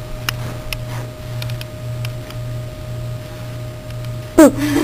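A steady low hum that swells about twice a second, with a few faint ticks. Near the end comes a short, loud pitched call that falls steeply and then wavers at a lower pitch.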